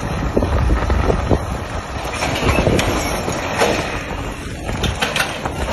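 Heavy engine rumble with wind buffeting the microphone, and scattered sharp knocks and clatter from about two seconds in.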